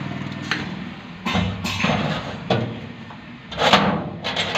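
Sheet-steel almirah doors and inner locker panel being handled: a series of metallic knocks and clanks, the loudest about three and a half seconds in.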